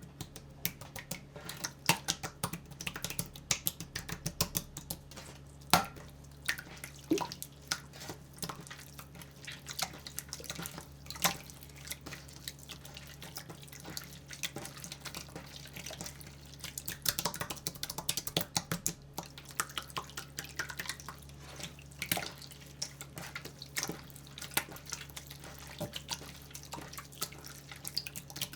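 Slime being squeezed and worked, making irregular wet clicks and pops over a steady low hum.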